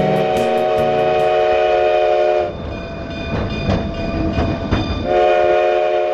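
Steam locomotive chime whistle sounding a chord of several tones, in two long blasts: the first breaks off about two and a half seconds in, and the second starts about five seconds in. Between the blasts is a rougher, noisier stretch with scattered knocks.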